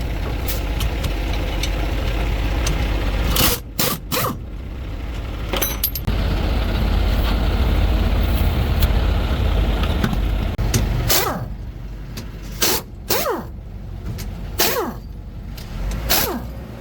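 Heavy truck engine running with a steady low rumble that drops away about ten seconds in. Sharp metallic clanks come twice in the first half and several times after the rumble fades.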